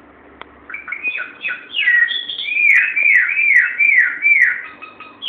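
Pet myna bird whistling a quick run of downward-sliding notes, one after another, starting about a second in; the bird is mimicking rather than using a call of its own.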